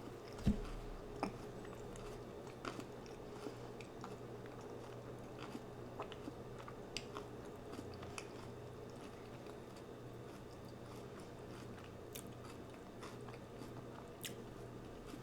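Close-miked chewing: small wet clicks and occasional crunches of food being eaten, over a steady low hum, with a sharper knock about half a second in.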